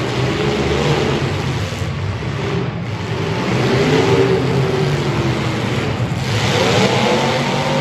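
Several demolition-derby cars' engines running and revving together, with one engine revving up sharply near the end.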